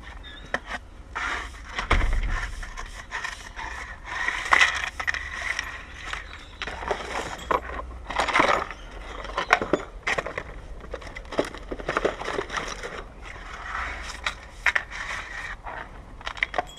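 Hard objects handled at close range: repeated scraping with many sharp clicks and clinks, in uneven bursts.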